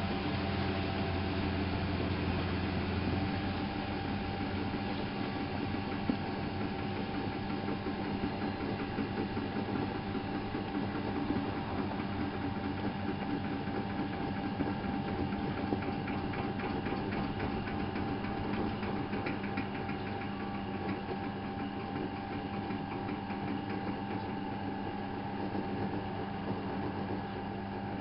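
Miele Novotronic W830 washing machine running, its motor and drum giving a steady mechanical hum with a couple of steady tones. A deeper hum drops out about three seconds in.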